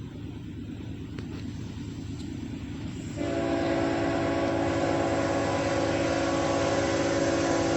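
Norfolk Southern diesel locomotive's air horn sounding one long chord of several notes, starting about three seconds in, over the low rumble of the approaching train.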